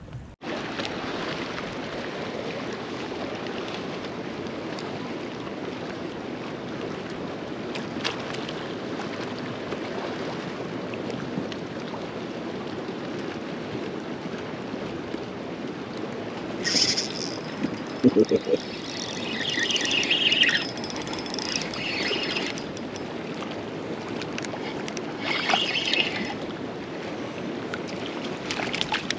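Steady wind noise on the microphone and small waves lapping around a fishing kayak. Louder, higher-pitched sounds break in twice, from about 17 to 22 seconds and again around 25 seconds.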